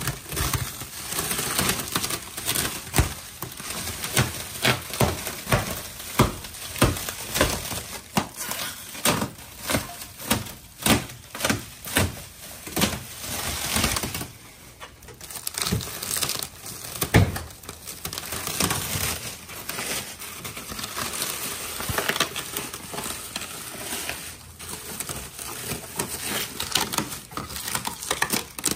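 Plastic stretch wrap and bubble wrap being cut with a utility knife and pulled away by hand, crinkling and crackling with many irregular sharp snaps.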